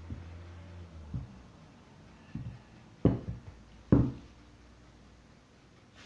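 Rolling pin knocking and thumping on a floured work surface as dough is rolled out: five separate knocks, the two loudest about three and four seconds in.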